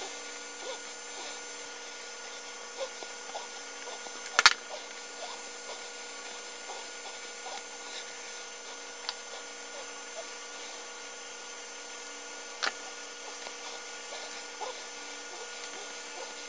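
Hands handling a heavy electrical cable, wire ends and a plug on a wooden table: scattered small clicks and taps, with a sharp click about four seconds in and another a little past two-thirds through, over a steady hum.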